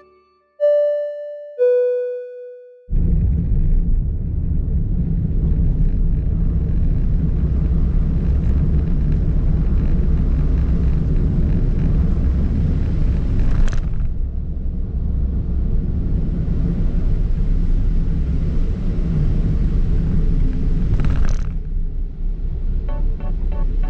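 Steady low road and engine rumble inside a moving car's cabin, with two brief hissing swishes partway through. It is preceded by two short musical notes at the start, and music comes in near the end.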